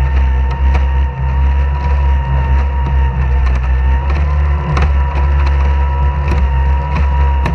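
Small racing outboard engine of a stock outboard hydroplane running steadily at low speed, with frequent short sharp knocks over it.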